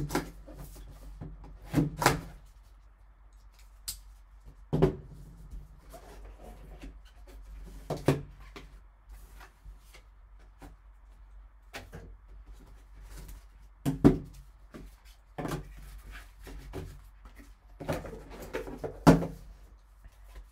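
Cardboard card box being opened and its contents handled with gloved hands: irregular knocks and taps of cardboard and plastic, some sharp and some soft, over a faint steady low hum.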